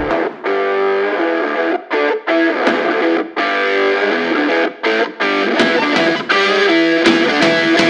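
Background music led by electric guitar, with short breaks between phrases; a low bass part comes in about two-thirds of the way through.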